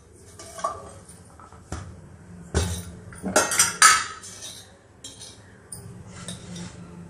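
Nonstick frying pan knocking and clinking against the metal grate of a gas stove as it is set down and shifted, a handful of sharp metal clinks, the loudest cluster in the middle.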